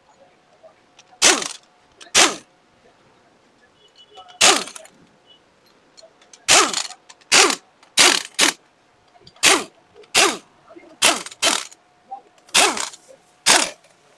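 About thirteen sharp, loud knocks at uneven intervals, half a second to two seconds apart, as the Yamaha Saluto motorcycle is being taken apart.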